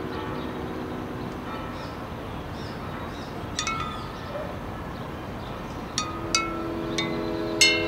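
Chimes ringing in a few scattered bright strikes, the loudest near the end, over a steady hiss of street ambience. A low held chord comes in about six seconds in.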